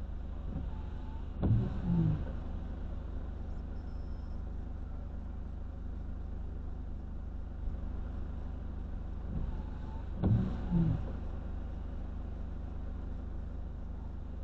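Steady low hum of the parked vehicle's idling engine, heard inside the cab. Twice, about a second and a half in and again about ten seconds in, a brief double sound falls in pitch over it.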